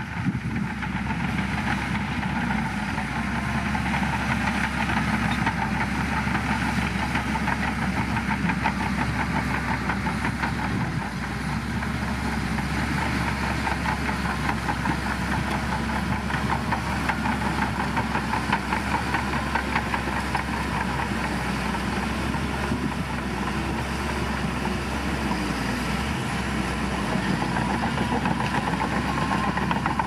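Shantui crawler bulldozer's diesel engine running steadily under load as the dozer pushes a heap of soil with its blade, with a fast clatter running through the engine note.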